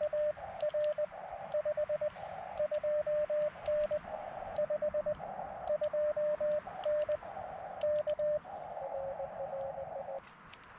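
Morse code (CW) signal heard through a ham radio receiver's speaker: a single steady tone keyed in dots and dashes, with the hiss of the receiver's narrow filter filling the gaps between characters. It cuts off suddenly near the end.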